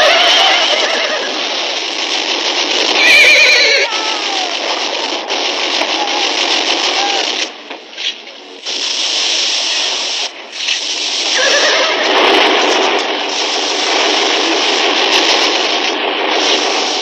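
Battle-scene soundtrack: a dense, continuous din of horses and battle noise, with a loud horse whinny about three seconds in. The din drops away briefly about eight seconds in.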